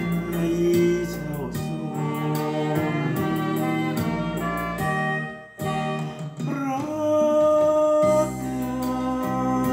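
A song playing: a voice singing over instrumental backing. There is a short drop about five and a half seconds in, and a long held note near the end.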